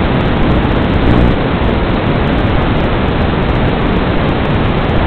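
Loud, steady static hiss from the audio channel of an analog FPV video link, with no motor or impact sounds in it.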